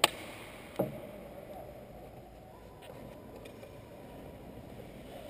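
Two sharp knocks about 0.8 s apart, the first a bright crack, the second a duller thud, then quiet room noise.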